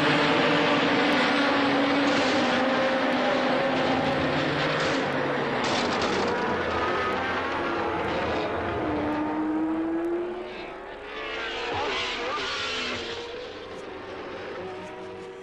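Several Formula One racing engines of the early 1970s running at high revs as a pack of cars passes, their pitch rising and falling with the revs, one clear rising note about two-thirds of the way in. The sound fades toward the end.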